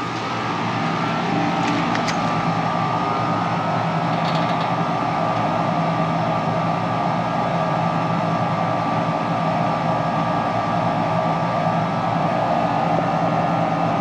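Steady hum of running machinery with a few steady tones, building slightly over the first second and then holding even.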